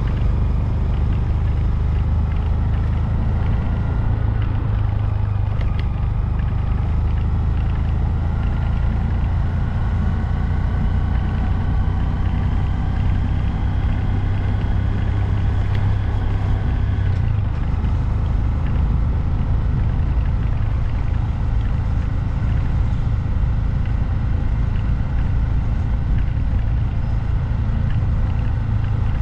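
2022 Honda Grom's 124 cc single-cylinder engine running under way, with heavy wind rumble on the microphone. The engine's pitch climbs slowly for most of the stretch and changes about two-thirds of the way through.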